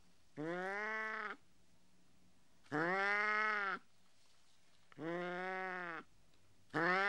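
An animal calling: a drawn-out, low-pitched call about a second long, rising then falling in pitch, repeated four times at an even pace with silence between, like a looped recording.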